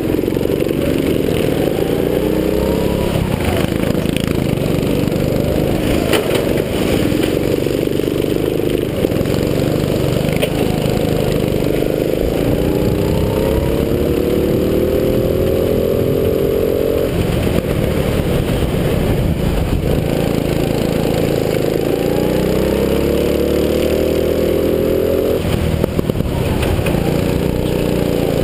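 270cc four-stroke go-kart engine heard from on board, revving up again and again in long rising sweeps as the kart accelerates, with the pitch dropping off sharply when the throttle is lifted about 17 and 25 seconds in.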